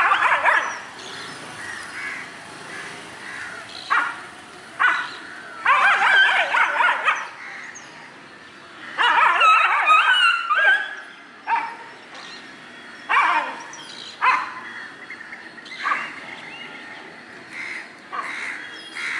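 Dogs yelping and whining in repeated short bursts, with two longer bouts about six and nine seconds in. The cries come from a mating pair stuck rear to rear in a copulatory tie, with a third dog beside them.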